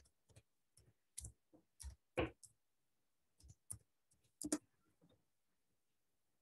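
Computer keyboard keys clicking faintly as a word is typed, in irregular runs of taps with a short pause near the middle.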